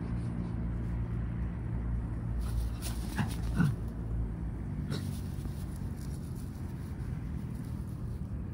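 A small mixed-breed dog whimpering briefly about three seconds in, a short whine that slides in pitch. A steady low rumble runs underneath, with a few light rustles.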